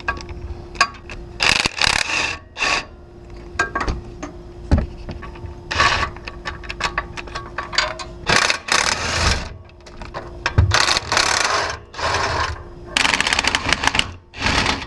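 Hand ratchet clicking in repeated short runs as a swivel and long extension back out exhaust manifold bolts, with a few sharp knocks of metal on metal.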